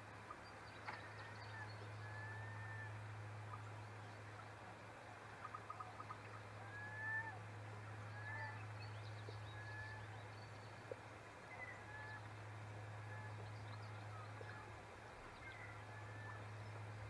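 Faint bird calls from out on the water: short whistled notes, one every second or so, from several birds, over a steady low hum. A quick run of clicks about five seconds in.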